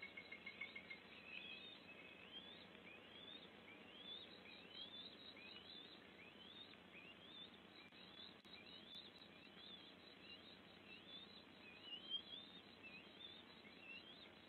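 Faint forest ambience: a steady series of short rising chirps, a little more than one a second, over a light hiss, with a fast pulsing trill that stops about a second in. There is one brief tick near the end.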